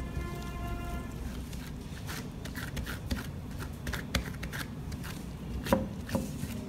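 Gloved hands mixing chopped nuts into a date-and-egg paste, then pressing and patting it flat on a plate: rustling of the gloves and mixture with soft squishes and light taps, one louder tap near the end.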